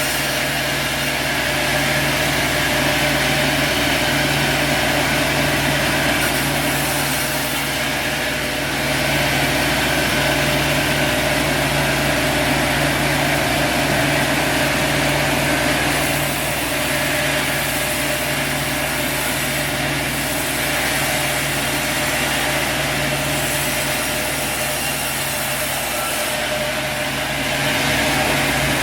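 Sawmill's engine running steadily, with a hiss over it that swells and eases every few seconds.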